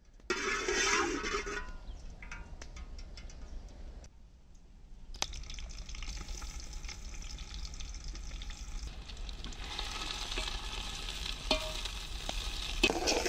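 Oil sizzling in a steel pot as sliced onions and green chillies fry, stirred with a perforated metal skimmer. Loudest just after the start; after a short break about four seconds in, a steady sizzle continues with a few light clicks.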